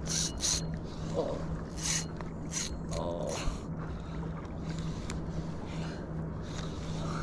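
Spinning reel being cranked to retrieve fishing line, with water splashing in short bursts against a paddle board over a steady low hum.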